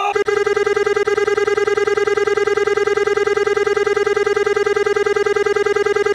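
Cartoon sound effect for a burst of glowing light: a sustained buzzing electronic tone that sets in suddenly, holds one steady pitch and pulses rapidly.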